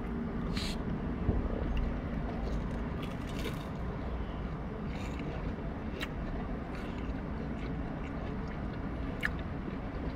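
Chewing of crunchy fried mac-and-cheese bites (Burger King Mac N Cheetos), with a few faint crunches and mouth clicks, over a steady low hum in a car cabin.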